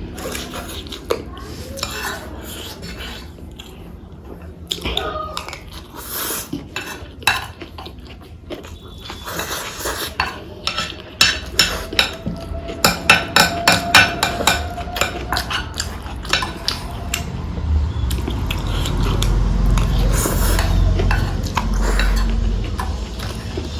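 Cutlery clinking and scraping against a plate of food while eating, with a quick run of clinks in the middle, then a low rumble near the end.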